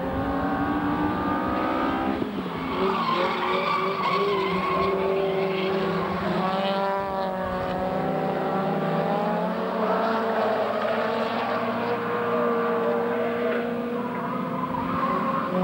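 Racing saloon cars running hard: several engines overlap, their pitch climbing and dropping as they rev through the gears.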